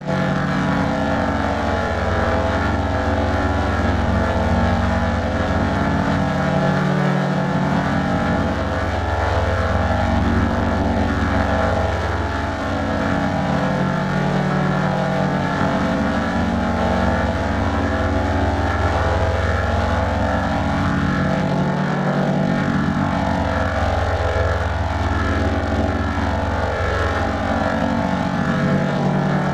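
Sustained keyboard pad chords in G major with a steady held bass, the chord changing about every seven or eight seconds.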